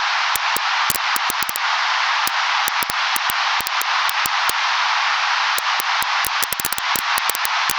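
Wood fire crackling in a fireplace: a steady hiss with scattered sharp pops and snaps, a quick run of pops about six and a half seconds in.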